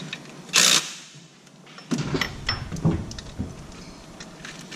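Hand tools working on the engine under the hood: a short metallic rattle about half a second in, then scattered clicks and knocks.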